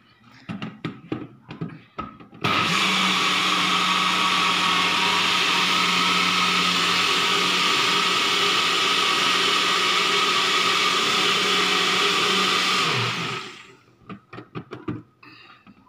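Super Blend personal bullet blender running, blending basil, garlic and oil into pesto. The motor starts abruptly about two and a half seconds in, runs steadily for about ten seconds, then winds down. Before and after it come plastic clicks and knocks as the cup is twisted onto the base and taken off again.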